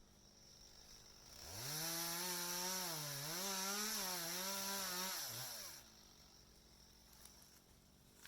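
Chainsaw revving up to full throttle and held there for about four seconds, its pitch dipping briefly midway, then dropping back off.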